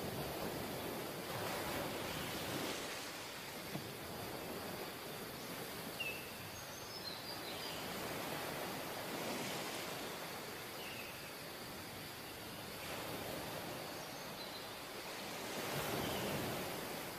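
Ocean surf breaking and washing up a sandy beach, a steady rushing that swells every few seconds as each wave comes in.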